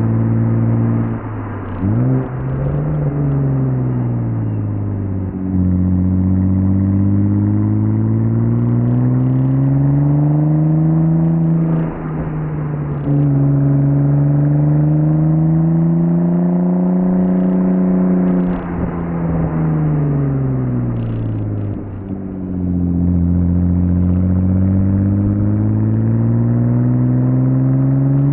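Stage 1 tuned 2.7-litre biturbo V6 of a 1998 Audi S4 B5 under way: its revs rise and fall over and over, with a quick throttle blip about two seconds in, a drop in pitch at a shift about twelve seconds in, and long climbs as it accelerates between slowdowns.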